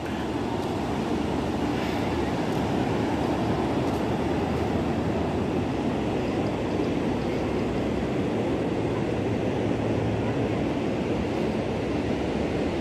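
Steady rushing noise of wind on the microphone mixed with distant surf, even and unbroken throughout.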